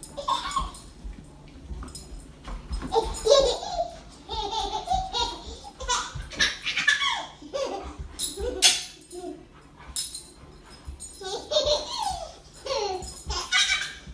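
Repeated bouts of laughter, broken up and bubbling, with a few sharp clicks in between.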